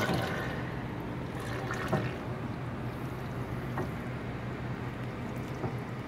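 Open spur-gear reduction box of a motor-driven flywheel pump-jack machine running, the gears meshing with a steady low hum. A short knock repeats about every two seconds.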